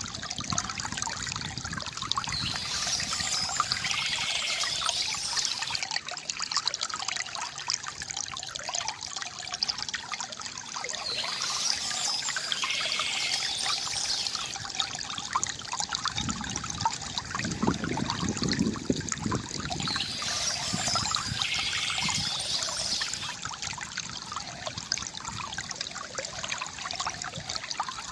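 Water from a bamboo fountain trickling and pouring steadily into its basin.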